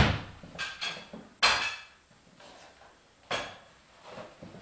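Kitchen crockery and cutlery being handled: a plate and butter knife clattering and knocking on a worktop, with a few sharp knocks that ring briefly. The louder ones come at the start, about a second and a half in and about three seconds in.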